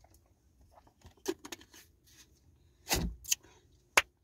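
A few small clicks and knocks of handling, then a single sharp hand clap about four seconds in.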